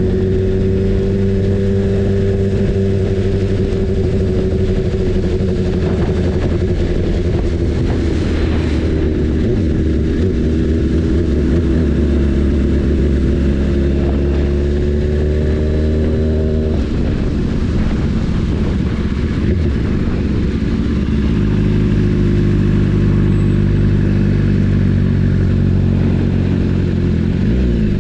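BMW S1000RR's inline-four engine running at fairly steady revs while riding. The engine note changes twice, once about 17 seconds in and again about 21 seconds in.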